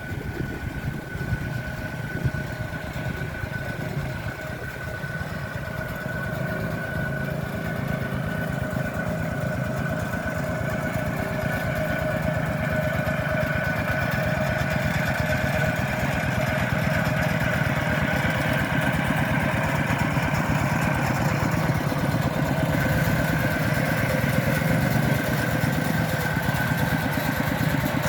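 Small engine running steadily, with a steady whine over a low rumble, growing gradually louder.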